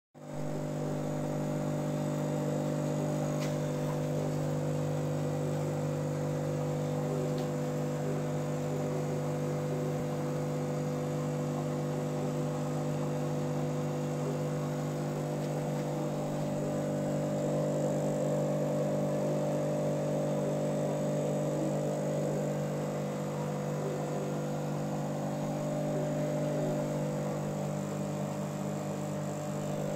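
Steady hum of running aquarium equipment, such as the air pump and filter, with a faint hiss of bubbles streaming through the water.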